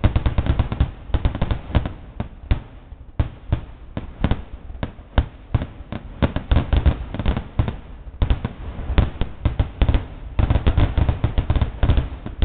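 Fireworks display: aerial shells bursting in a rapid, irregular string of sharp bangs and crackles, thickest just after the start, again around the middle, and near the end.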